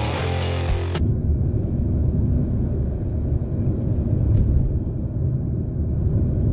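Rock music that cuts off abruptly about a second in, then the steady low rumble of a car driving, engine and road noise heard from inside the cabin.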